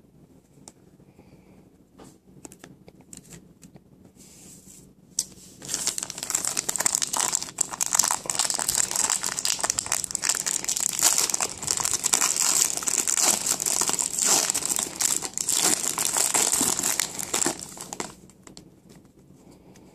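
Plastic wrapping on trading cards being torn open and crumpled: a few light clicks and rustles, then a long stretch of loud, dense crinkling from about five seconds in that dies down near the end.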